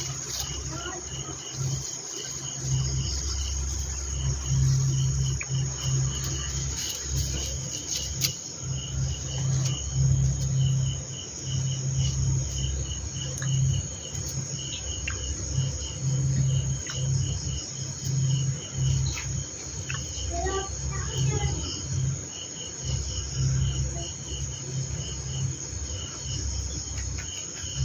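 Crickets chirping in short, evenly spaced pulses, several a second, over a low, uneven rumble that is the loudest sound.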